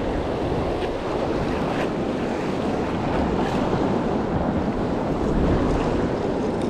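Steady wind noise on the microphone over the wash of the sea.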